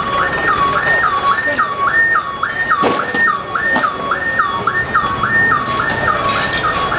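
Electronic alarm sounding continuously, a tone that drops in pitch and snaps back up about twice a second. A couple of sharp knocks come about three and four seconds in.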